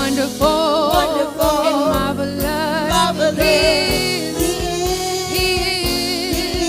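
Gospel worship singers holding a long sung note with vibrato over a live band with a steady drum beat.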